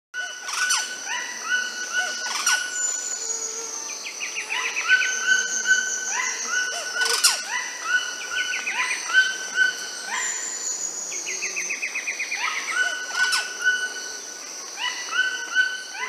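Bird chorus: many short rising whistled calls and fast trills from several birds, over a steady high insect whine, with a few sharp clicks.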